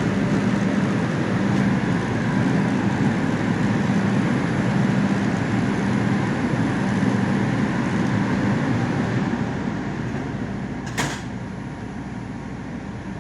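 R142 subway car running, heard from inside the car: a steady rumble and hum that eases somewhat near the end. There is one sharp knock about eleven seconds in.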